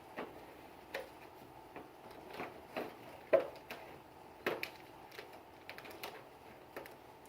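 Irregular clicks and light knocks from a Sig Sauer P320 pistol being handled during cleaning, roughly one or two a second, with the sharpest click about halfway through.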